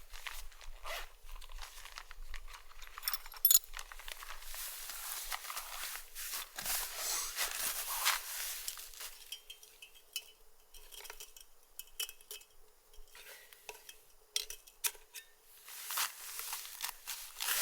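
Gusting wind with rustling, broken by many light clicks and a few small clinks, a cluster of them about three seconds in.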